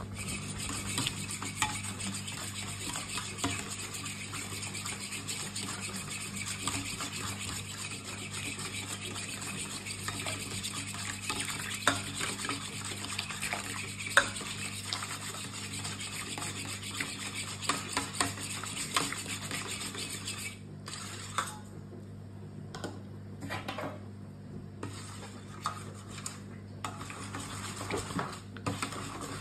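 Metal spoon stirring coconut milk powder into hot water in a stainless steel bowl, clicking and scraping against the bowl's sides at an irregular pace. The mix is being dissolved to make coconut milk.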